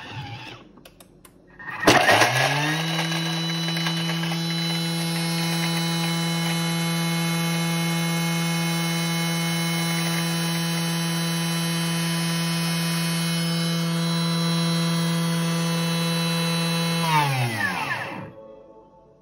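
Thermomix TM6 motor and blade blending at top speed 10 on a 15-second timer. It spins up quickly about two seconds in to a steady high whine, holds, then winds down with a falling pitch near the end.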